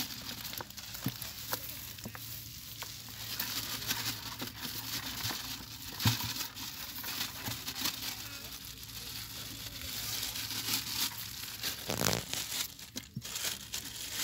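Dry straw rustling and a plastic bag crinkling as hands work in wet mud, with scattered small clicks and a sharper knock about six seconds in.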